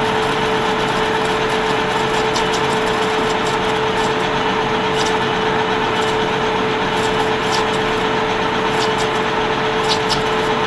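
Metal lathe running steadily, its motor and drive giving an even hum with one steady tone, with a few faint light ticks.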